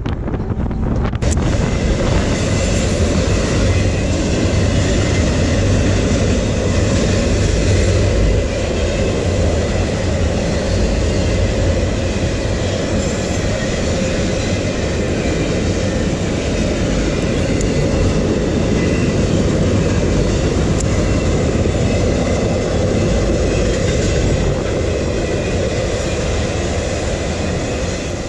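Freight train of double-stacked container cars crossing a railroad bridge, its wheels running steadily on the rails in a loud, continuous rumble.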